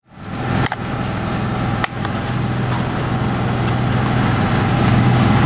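Small gas two-stroke engine of a 1/5-scale RC off-road truck idling steadily.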